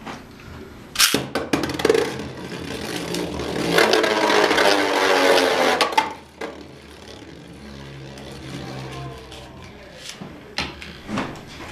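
A Beyblade launcher whirs loudly for several seconds and cuts off with a sharp click about six seconds in as the top is released. The spinning top then runs on in the plastic stadium with a quieter, steady scraping hum.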